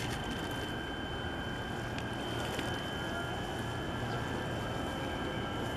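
Container port ambience: a steady low rumble of distant ship and terminal machinery, with a thin, unchanging high-pitched whine over it.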